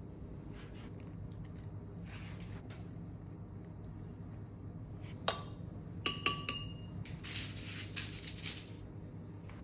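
A few ringing clinks of a utensil against a white ceramic bowl about six seconds in, the loudest sound here, after a single sharp click. Then aluminium foil crinkles as a sheet is spread out, for about a second and a half.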